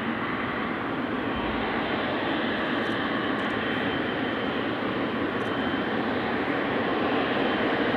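Boeing 777-300ER's GE90-115B jet engines running as the airliner rolls down the runway after touchdown: a steady, dense rushing noise with a faint high whine, growing slowly louder.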